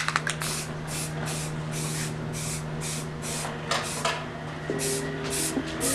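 Paint being sprayed onto a truck's front bumper and grille: one long hiss of about three and a half seconds, then a few short bursts near the end, over a steady low hum.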